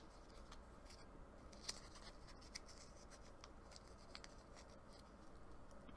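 Near silence: low room tone with a few faint, scattered clicks and rustles of light handling.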